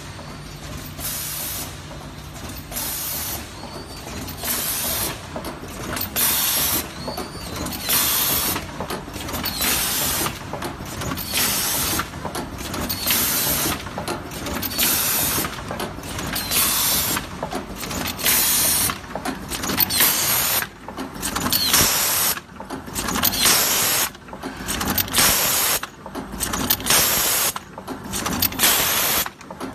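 Horizontal premade-pouch filling and sealing machine running. Its pneumatic cylinders give short, repeated hisses of air about once a second over the steady noise of the mechanism.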